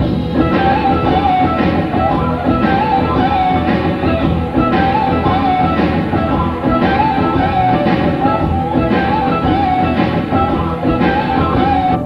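Rock band playing with an electric guitar lead over a steady beat, a wavering melodic line standing out above the band.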